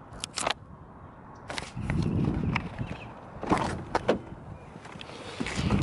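Scattered sharp clicks and knocks of hands handling loose car parts and the camera, with a short low rumble about two seconds in.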